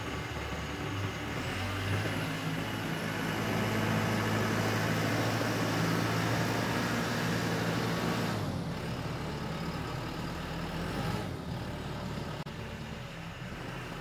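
Diesel engine of a Branson 7845c cab tractor running with a steady low hum, pulling harder for several seconds while it takes up a hitched implement and drives off, then easing back a little after about eight seconds.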